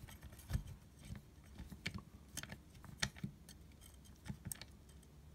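Faint, irregular small clicks and taps from a butane torch's metal barrel being screwed onto the torch body by hand.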